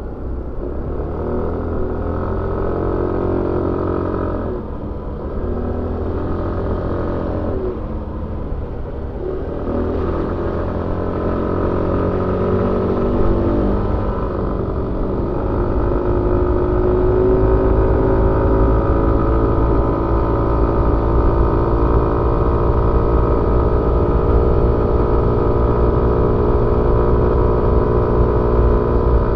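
Suzuki Avenis 125 scooter's single-cylinder engine heard on board while riding. The revs rise and fall back three times in the first ten seconds, then climb and hold a steady pitch, over a low rumble.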